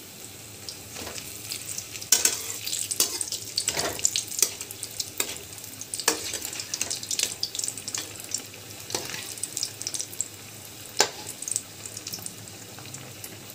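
Besan-battered potato fritters sizzling and crackling in hot oil while a perforated frying spoon turns them. A steady hiss runs under scattered sharp pops, with a few louder crackles, the loudest about two seconds in and about eleven seconds in.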